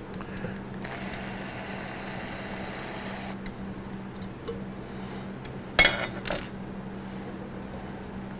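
Cordless drill/driver running for about two seconds, turning a bolt on the arm of a DeWalt 788 scroll saw, followed a few seconds later by a sharp metallic clatter of parts.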